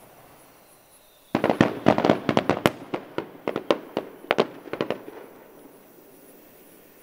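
Aerial firework shells bursting: a rapid string of sharp bangs and crackles that starts about a second in, is densest at first, then thins out and dies away by about five seconds.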